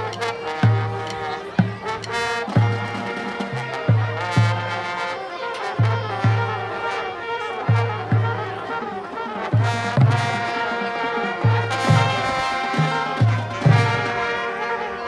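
High school marching band playing a brass piece, with trumpets and trombones carrying the tune over a steady pulse of low bass notes about twice a second and sharp percussion hits.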